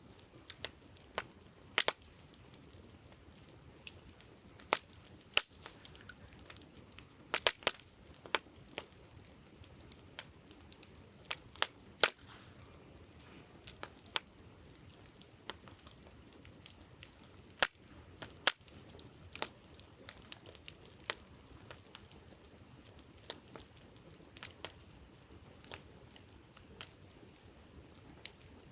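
Wood campfire crackling: irregular sharp pops and snaps, a few clearly louder than the rest, over a faint steady hiss.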